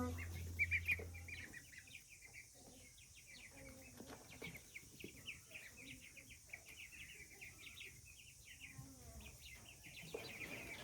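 A flock of baby chicks cheeping: many short, high peeps overlapping without a break, loudest in the first second.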